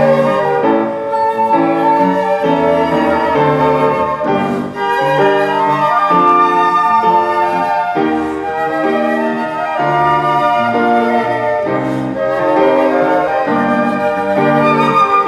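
Flute playing a melody over a steady piano accompaniment of repeated chords.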